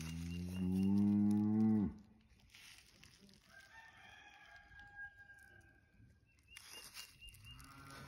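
Highland cow mooing: one long, low moo that ends about two seconds in with a sudden drop in pitch.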